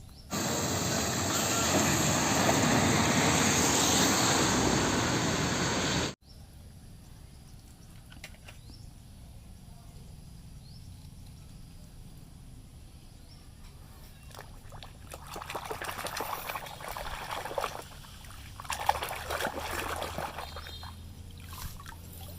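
Running water pouring steadily, as when rinsing mud off a toy truck, cutting off abruptly about six seconds in. Later there are two quieter spells of splashing and rubbing.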